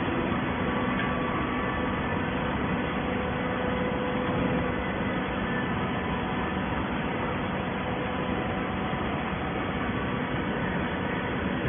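Steady industrial machinery noise, an even whirring hum with faint steady tones running through it, unchanging throughout.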